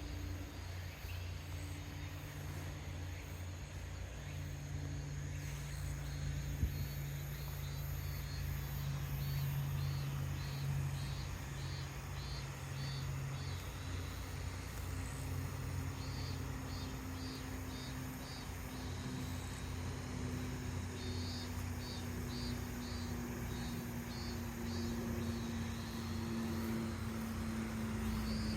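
Rural outdoor ambience: an insect chirping in repeated runs of short, evenly spaced pulses over a low steady hum.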